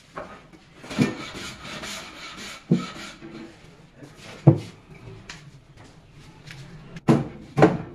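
Plywood cabinet being shifted into place on a tile floor: a handful of sharp wooden knocks, two in quick succession near the end, with scraping and rubbing between the first ones.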